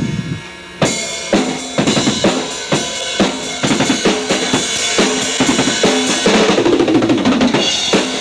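Rock music led by a drum kit: bass drum and snare keep a steady beat of about two hits a second, with sustained pitched notes over it. The beat comes in about a second in.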